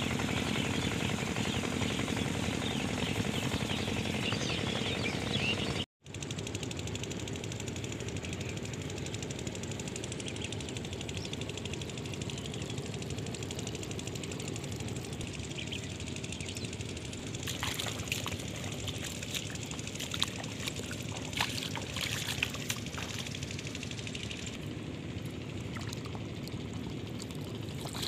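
Water gushing and splashing from a Kirloskar 5 hp pump set's outlet, with the pump's engine running steadily underneath. The sound drops out for an instant about six seconds in, and a few sharp clicks come later on.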